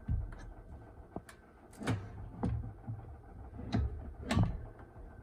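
A handful of short clunks and knocks from a We R Memory Keepers button press cutter being swung into place and pressed to cut a paper circle; the cut itself gives no clear snap.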